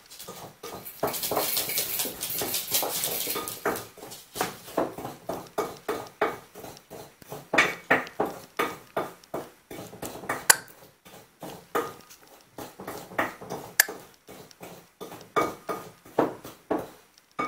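Small dog's claws clicking and scrabbling on a tile floor in quick irregular runs of sharp clicks and knocks as it plays with a plush toy. A rustling hiss runs for a couple of seconds about a second in.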